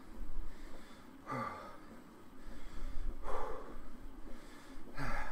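A man breathing heavily from exertion while pedalling an exercise bike, with three loud, hard exhalations, the longest about three seconds in, over a low steady rumble.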